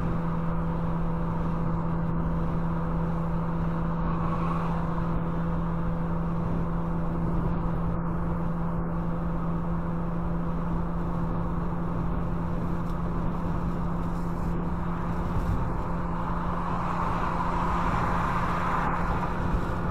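Steady road and tyre noise inside a car cruising on a highway, over a constant low hum. The noise swells briefly near the end as the car passes under an overpass.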